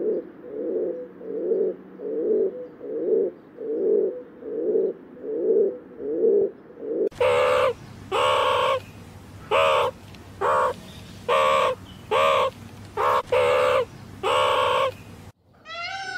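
Feral pigeon cooing, a low coo about every three-quarters of a second for the first seven seconds. Then come about nine loud, harsh animal calls, roughly one a second, and a peacock's mewing call starts at the very end.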